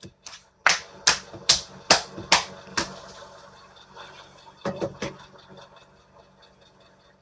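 A run of six sharp taps, a little over two a second, then a softer couple of taps about five seconds in.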